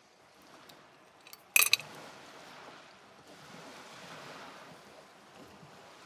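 Handheld lighter being struck to light a bundle of dried sage: a few faint clicks, then a sharp cluster of clicks about a second and a half in, followed by a steady soft hiss.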